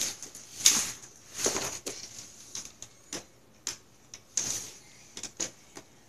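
Irregular rustling and crinkling of a cardboard toy box and its plastic packaging being handled, with scattered light taps and clicks. The rustling is loudest in the first two seconds.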